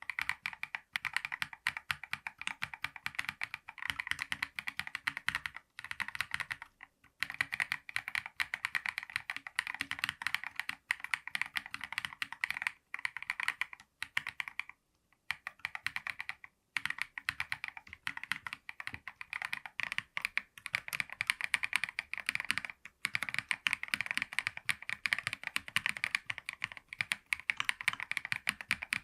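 Fast continuous typing on a KiiBOOM Phantom 68 transparent mechanical keyboard with stock Crystal switches: a dense run of key clicks, broken by short pauses about six and a half seconds in and around fifteen seconds in.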